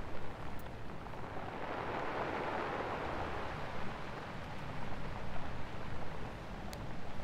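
Steady rushing noise that swells a couple of seconds in and then settles, with two faint ticks, one near the start and one near the end.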